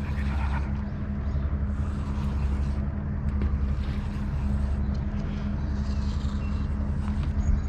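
A motor running steadily: a low, even drone with a hum that does not change.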